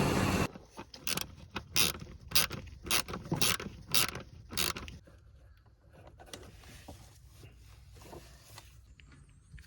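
A running engine cuts off sharply about half a second in. A ratchet wrench follows, clicking in short strokes about two a second for roughly four seconds, as a coil-on-plug ignition coil is unbolted and swapped, then near quiet.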